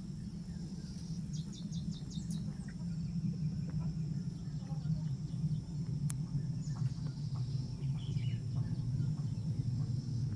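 Distant aircraft passing overhead: a steady low drone that slowly grows louder, with insects chirring and a short run of quick high chirps about two seconds in.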